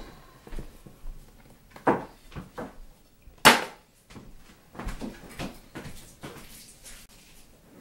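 Plates and dishes being handled and set down: a scatter of clinks and knocks, the loudest and sharpest about three and a half seconds in.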